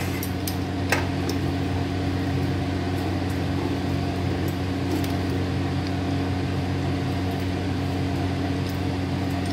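Steady mechanical hum with an even low drone, like a running fan or motor, with one light click about a second in.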